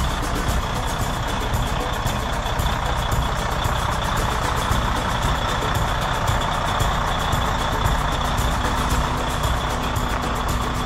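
Heavy-duty truck's diesel engine running steadily at low speed as the truck pulls slowly across gravel and turns, with a strong low rumble.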